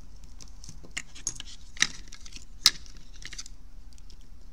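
Scattered light clicks and rattles of a disassembled headphone's plastic earcup parts and circuit board being handled. The sharpest clicks come about two seconds and two and a half seconds in.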